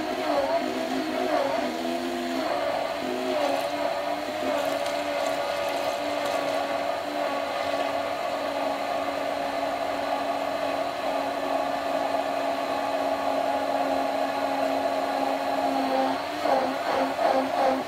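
Hand-held stick blender running continuously in a beaker of soya milk while sunflower oil is poured in slowly, emulsifying it into a thickening vegan mayonnaise. Its motor pitch wavers for the first few seconds, then holds steady.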